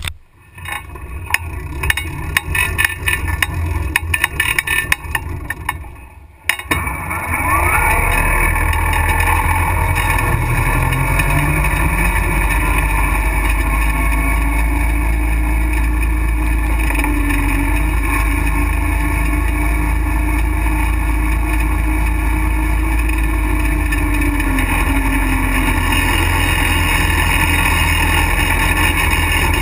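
Motorized bike's small motor running unevenly at first, then about six seconds in it revs up as the bike pulls away and runs steadily at speed. Heavy wind rumble on the microphone.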